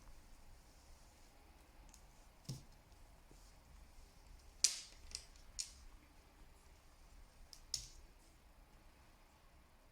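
Scattered sharp plastic clicks and taps, about five in all with the loudest nearly five seconds in: a small plastic doll's accessories, glasses and slippers, being handled and snapped on.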